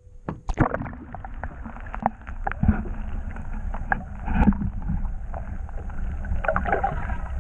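Water sloshing around a plastic fishing kayak at sea, with wind on the microphone and irregular knocks and clicks from the hull and gear as a hooked fish is fought.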